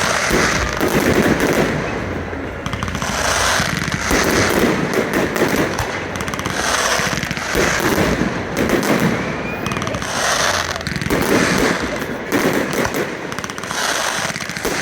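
Fireworks display: rapid, overlapping bursts and crackling reports, swelling in waves every two to three seconds.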